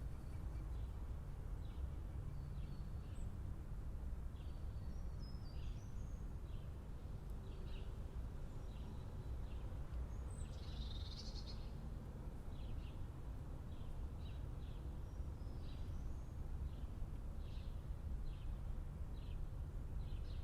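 Steady low rumble of city ambience, distant traffic, with small birds chirping in short, repeated calls over it. A busier flurry of chirps comes about ten seconds in.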